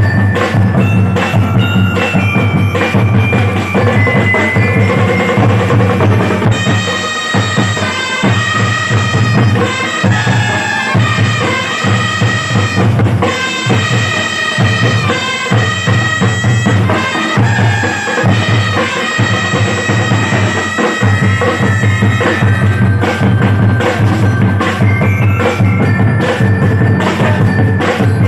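Marching drum corps playing a drum cadence: drums beating steadily, with a pitched melody line running over them.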